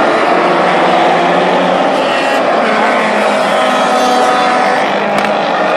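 A pack of historic touring and muscle race cars running hard together, loud and steady, several engines at once with their pitches overlapping and shifting as they accelerate past.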